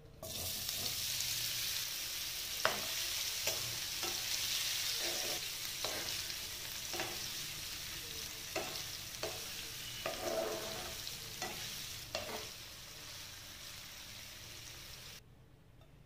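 Paneer cubes sizzling as they fry in oil in a nonstick pan, with a spatula knocking and scraping against the pan as they are stirred. The sizzle starts suddenly and cuts off near the end.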